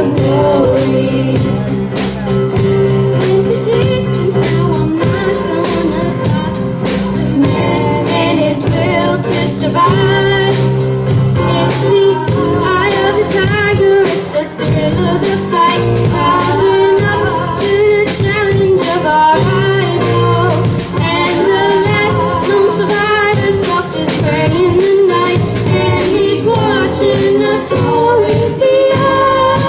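A live rock band playing with drums, cymbals and bass, and a wavering sung or horn melody over them.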